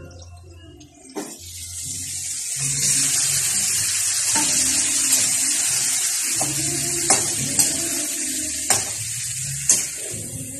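Raw chicken pieces dropped into a hot wok of oil with browned garlic and onion: about a second in, the oil breaks into a loud, steady sizzle. Several sharp clicks of a metal spatula against the wok as the chicken is stirred.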